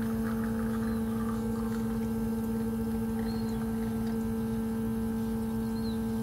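Bezzera Aria espresso machine's vibratory pump humming steadily while it pushes water through the coffee puck during a shot.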